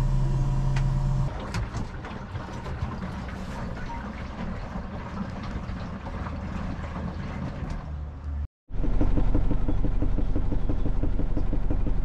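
Daewoo 2 kg wall-mounted mini washing machine on its spin cycle: a steady motor hum, then a rougher whirring rattle from the spinning drum. After a brief cutout it comes back louder, with a fast, even pulsing as the machine shakes the caravan.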